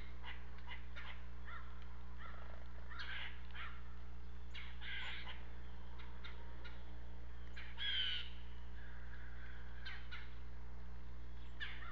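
Blue jays giving repeated short, harsh calls, the loudest one about eight seconds in, over a steady low electrical hum.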